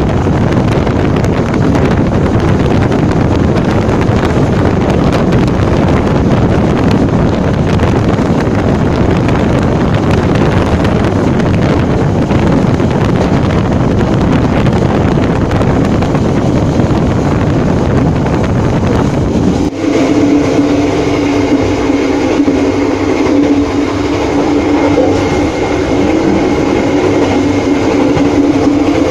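Passenger train carriage running at speed, its wheels rumbling on the rails with a loud rush of wind at an open window at the rear of the train. About twenty seconds in the rush cuts away and a steadier hum with several held tones takes over.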